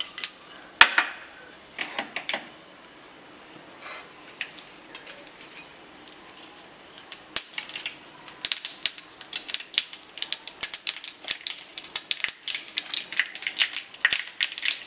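Mustard seeds heating in hot coconut oil in a small pan, the oil sizzling faintly. A few scattered sharp pops come first, then from about halfway the seeds start popping thickly in a rapid crackle: the tempering seeds bursting.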